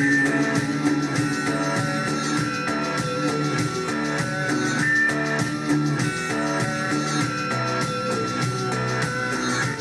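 A rock song with guitar and drums playing on the car's stereo, heard inside the cabin.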